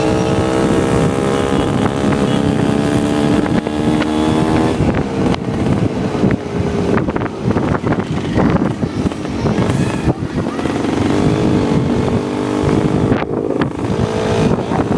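Motorcycle engine running while riding, with wind buffeting the microphone. The engine note climbs steadily for the first few seconds, then is mostly buried under rushing wind, coming through briefly again later on.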